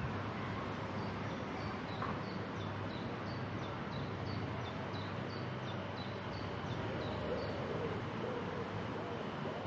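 A bird calling a long, even series of short, high, falling notes, a little over two a second, stopping about three-quarters of the way through, over a steady background hum.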